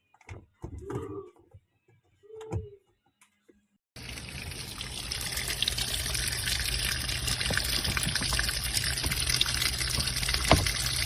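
A few brief knocks, then about four seconds in, water starts rushing and pouring steadily into a washing machine tub as it fills.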